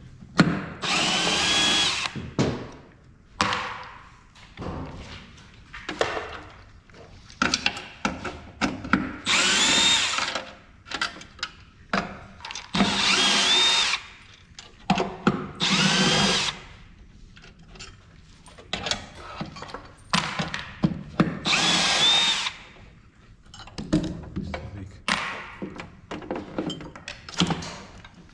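Cordless power screwdriver running in about six short runs of one to two seconds, each spinning up with a rising whine as it backs out screws. Light clicks and clatter of screws and parts come between the runs.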